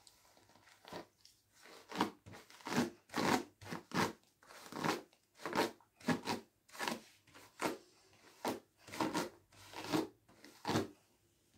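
Paddle hairbrush drawn through long hair, a run of scratchy brushing strokes about one or two a second.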